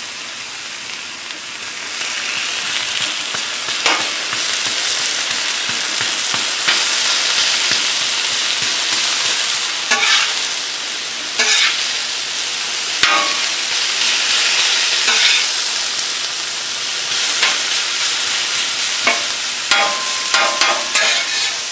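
Chopped beef sizzling on the hot steel top of a Blackstone griddle, the hiss swelling about two seconds in. A metal spatula scrapes and taps on the griddle as it chops and stirs the meat, with quicker strokes near the end.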